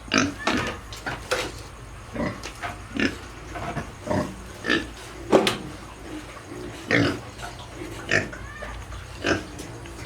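Piglets in a pen making short grunts and squeals, about two a second, some rising into higher-pitched squeals.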